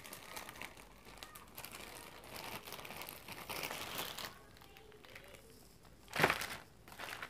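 Clear plastic packaging crinkling and rustling as it is handled, in scattered bursts, with one short, louder burst about six seconds in.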